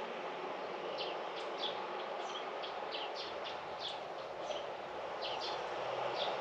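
Small birds chirping in short, quick, high notes, several a second, over a steady low background hum.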